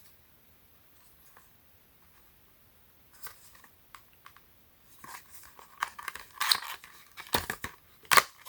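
Plastic packaging being handled and opened: faint at first, then crinkling and rustling that grows busier, with a couple of sharp plastic snaps near the end.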